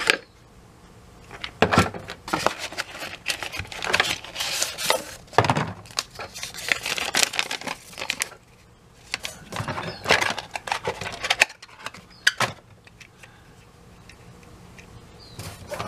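Unboxing handling noise: a cardboard box and a paper instruction sheet rustling in the hands, with clicks and knocks of the plastic phone mount's parts, in irregular bursts that die down in the last few seconds.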